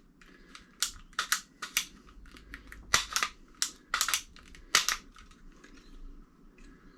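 Sharp clicks and taps from handling the small parts of a caravan roof hatch's control-knob mechanism while the spring, with line pushed inside it, is fitted into place. There are about a dozen in quick irregular succession, mostly between one and five seconds in, and a few fainter ones after.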